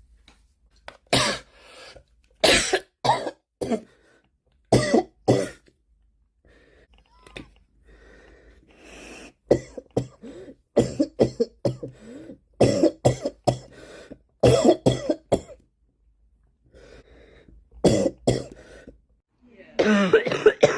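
Many people coughing, one clip after another: short, loud coughs, often in quick runs of two to four, with brief gaps between the runs.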